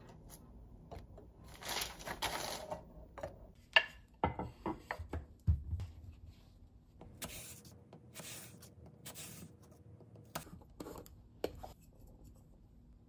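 Quiet kitchen handling sounds: scattered light clicks and soft knocks of a plate and food on a stone countertop, with one sharp click about four seconds in and a few short scraping rustles in the second half.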